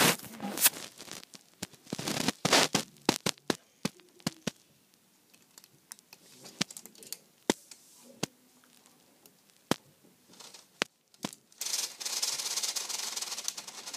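Plastic Lego Technic parts of the service truck clicking and rattling as it is handled and its outrigger legs are set. The clicks come thick in the first few seconds and then sparse. Near the end there are about two seconds of steady rubbing.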